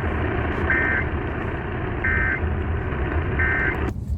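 Three short bursts of Emergency Alert System SAME digital data tones, a two-tone buzz a little over a second apart: the short end-of-message signal that closes an alert. They sound over a steady hiss and rumble that cuts off just before the end.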